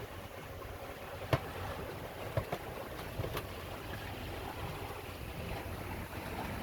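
A sailboat under way: water washing along the hull, with wind rumbling on the microphone. There are a few sharp knocks, the loudest about a second and a half in.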